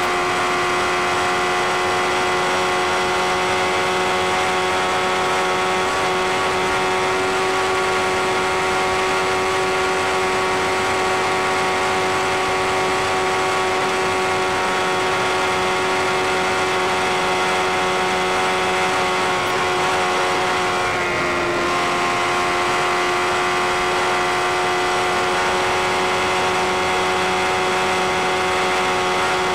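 Sport motorcycle engine running at steady high revs at motorway speed, with a brief dip in pitch about two-thirds of the way through before it settles back.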